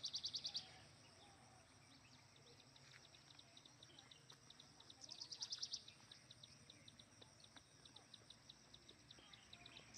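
Faint forest ambience: a rapid high-pitched trill of quick clicks comes at the start and again about five seconds in, with slower high ticking between the trills.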